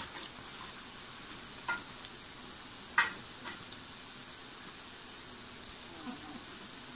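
Battered cauliflower florets deep-frying in hot oil with a steady sizzle. A metal slotted spoon clinks a few times against the aluminium pan while stirring and lifting them; the loudest clink comes about three seconds in.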